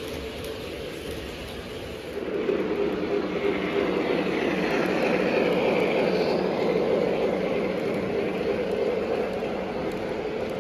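Lionel O-gauge model train running along the layout track, a steady mechanical rumble that grows louder about two seconds in as it comes closer.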